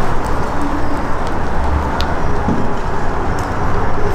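Wind buffeting the camera microphone: a steady low rumble with a few faint clicks.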